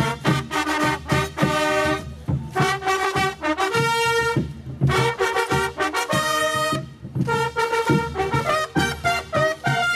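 A group of fanfare trumpets with hanging banners playing a marching fanfare in held, changing notes, with a steady beat of strikes underneath.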